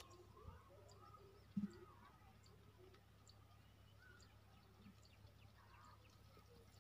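Faint scattered bird chirps and short calls over near silence, with one brief low thump about a second and a half in.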